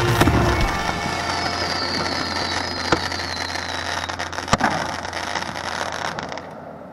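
Fireworks going off: continuous crackling with a few sharp bangs and a thin falling whistle in the middle, dying away near the end.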